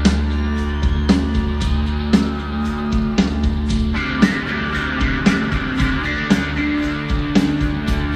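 Rock band playing a slow song: sustained electric guitar notes over a drum beat, with a hard hit about once a second.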